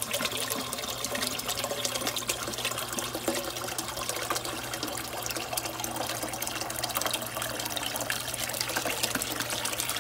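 Water poured in a steady stream from a container into a cooking pot, splashing continuously, with a faint low hum underneath.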